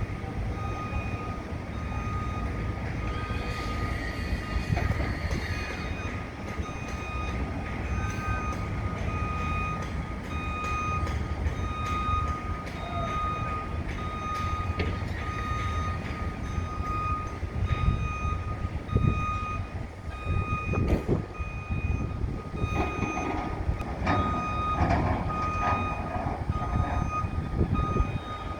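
Backup alarm of a construction vehicle beeping steadily and repeatedly as it reverses, over a constant low rumble of heavy machinery, with a few knocks a little past the middle.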